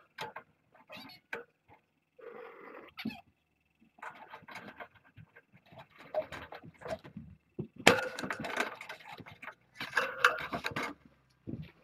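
Irregular rustling, scraping and knocks close to the microphone as the kitten cam and its cables are handled, louder in two bursts near the end.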